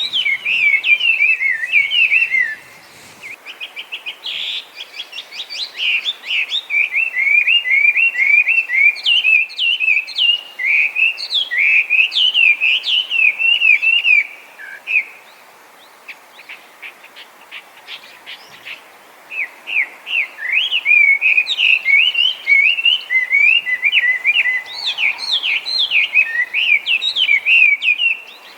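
Chinese hwamei singing: long, loud runs of rapid, varied whistled notes. About halfway through the song stops for a few seconds, leaving only faint quick notes, then starts up again.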